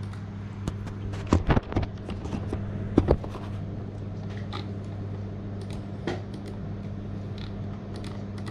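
A steady low hum runs under a few sharp clicks and knocks, bunched about one and a half seconds in and again about three seconds in, with fainter ticks after.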